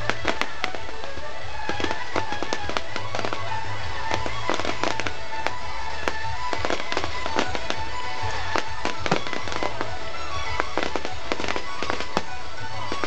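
Aerial fireworks shells bursting in rapid succession: a dense run of sharp bangs and crackles, several a second, with music playing underneath.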